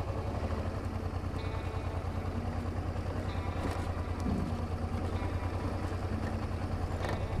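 Motorcycle engine running at low revs with a steady pulsing throb while the bike rolls slowly.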